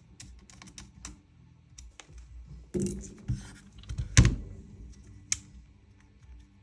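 Small metal and plastic gun parts clicking and tapping as the safety selectors are fitted into a Krytac Kriss Vector gas-blowback airsoft receiver. A louder knock comes about three seconds in, the loudest knock a little after four seconds, and a sharp click near the end.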